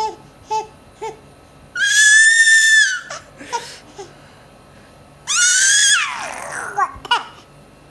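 A baby squealing, two long high-pitched shrieks with short little vocal sounds before them; the second squeal falls in pitch as it ends.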